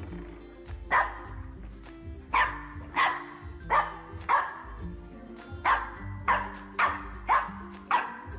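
French bulldog puppy barking, about ten short, sharp barks in uneven bunches.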